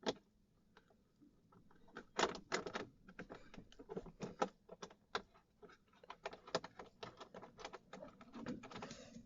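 Light, irregular clicks and taps of small screws and plastic dashboard trim being handled as the instrument cluster's screws are set in by hand.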